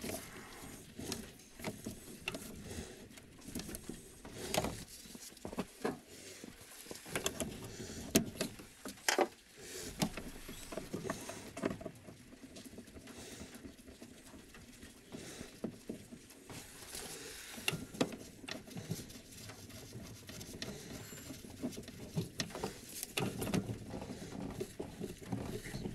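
Irregular light clicks, taps and knocks with some rustling, as of hand work with tools and parts; no engine running.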